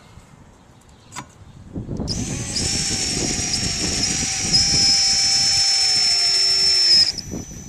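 Power drill running for about five seconds with a steady high whine as it drives a screw through a rubber flap into a plastic storm basin, stopping abruptly near the end. A single click about a second in.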